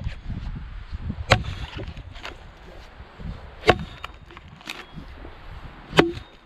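Axe chopping into a log: three heavy strikes about two and a half seconds apart, with a fainter knock between each.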